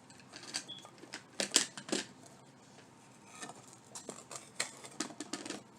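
Small craft pieces being handled on a table: scattered light clicks and clacks, a few sharper ones about a second and a half in and a busier run of taps near the end.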